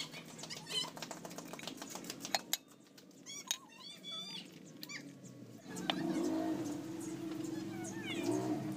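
Quick light metallic clicking as the piston and cylinder-block parts of a Komatsu PC200-8 excavator swing motor are handled and seated in the motor housing by hand, with birds chirping. About six seconds in, a steadier low humming sound comes in.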